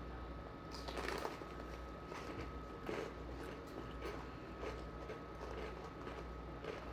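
Chewing on a cream-cheese-stuffed jalapeño coated with crunchy Takis rolled tortilla chips: irregular crunches and crackles about every half second to second. A faint steady high tone sounds behind them.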